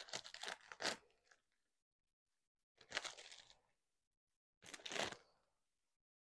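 Thin plastic shrink-wrap crinkling and tearing as it is pulled off a deck of cards, in three short bursts.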